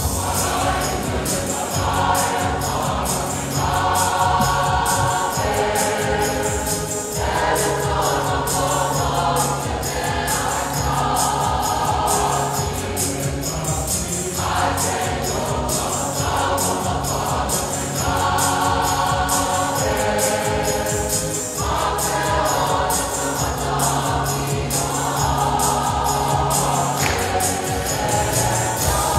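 Samoan church choir singing a village anthem in Samoan, in long phrases that break and restart every few seconds. Steady low notes and a regular beat accompany the singing.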